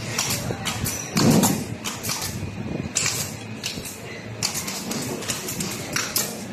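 Flat rattan strip being wrapped around an egg chair's metal frame tube, making irregular short clicks and rustles as it is handled, with a louder, duller sound just over a second in.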